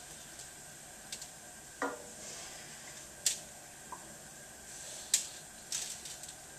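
Wooden spoon scraping and knocking against a nonstick skillet as stuffing is scooped out: a handful of short scrapes and taps, roughly a second apart.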